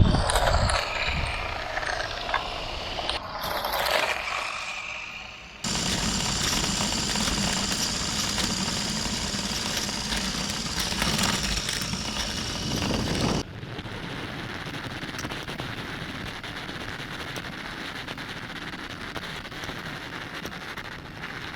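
A small toy-grade RC car's electric motor and plastic gearbox whining as it drives, with its hard plastic tyres rattling over pavement. The sound jumps abruptly in loudness twice, loudest in the middle stretch.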